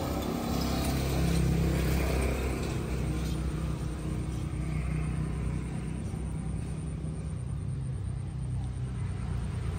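A steady low engine hum, as of a motor running nearby.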